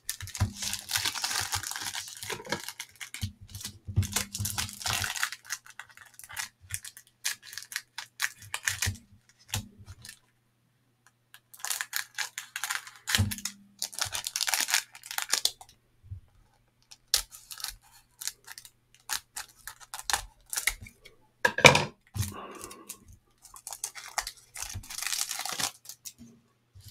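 Cellophane wrapper of a 1989 Fleer baseball card cello pack crinkling and tearing as it is opened by hand, in several bursts with short pauses between. Stiff cardboard cards click and slide against each other as they are thumbed through.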